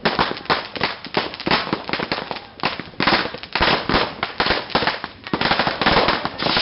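Dense, irregular popping and banging of firecrackers and fireworks, many bangs a second with rapid strings of pops.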